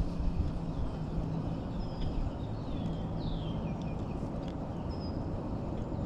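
Small birds chirping: short, high notes that slide downward, every second or two, over a steady low rumble of wind and outdoor noise.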